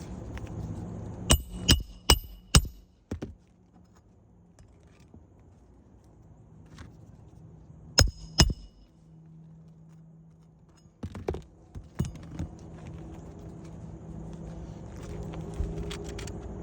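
Sharp metallic clinks from a metal tool being struck: four in quick succession, each with a brief high ring, then two more several seconds later. A faint steady hum runs between them.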